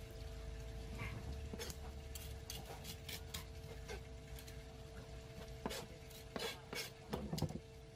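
A filleting knife cutting and scraping through a flatfish on a plastic cutting board: a run of short clicks and knocks as the blade taps and scrapes the board, the loudest few near the end. A steady hum runs beneath.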